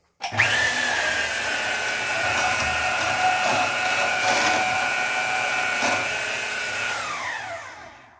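DeWalt portable band saw cutting through taped stainless-steel braided AN hose: the motor starts a moment in, runs with a steady whine over the rasp of the blade cutting, then winds down with falling pitch near the end.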